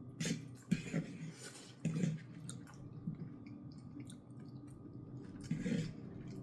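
A person chewing food, with wet mouth clicks and a few short crunches scattered through.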